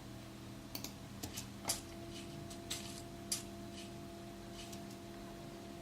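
Faint, irregular crackles and ticks, a handful spread over the first three and a half seconds, from a played-back sample recorded of footsteps through dry leaves, over a steady low hum.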